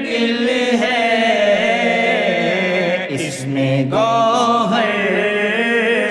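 A man singing a Urdu qasida, a devotional poem, drawing the word 'mushkil' out into long, wavering held notes. There is a short break about three seconds in before the line goes on.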